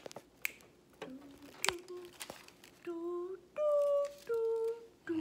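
Three sharp smacks in the first two and a half seconds, then a woman humming a short tune of three held notes, low, then high, then a little lower.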